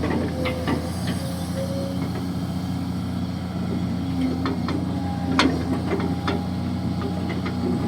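Kobelco SK200-6 Super hydraulic excavator's diesel engine running steadily, with a few short sharp knocks and clicks over it, the loudest about five and a half seconds in.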